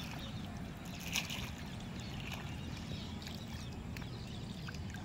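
Riverside ambience: a steady low rumble with faint water sounds, and a brief louder sound about a second in.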